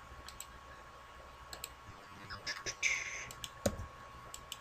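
Computer mouse clicking through menus and a file dialog: a scattering of sharp single clicks, several close together around the middle.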